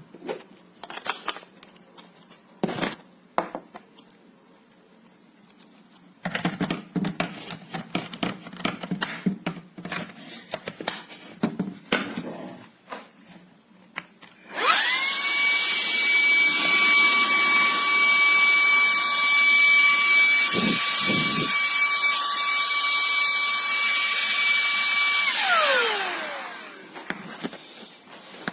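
Shark WandVac 2.0 cordless handheld vacuum switched on, running for about ten seconds with a high steady whine and rushing air, then switched off and spinning down with a falling whine. Before it starts, a series of clicks and rattles from handling.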